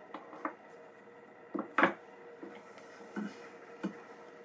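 A few short clicks and knocks of a sharpening stone and a steel engraving tool being handled and set down on a wooden bench, the loudest a sharp knock about two seconds in, over a faint steady hum.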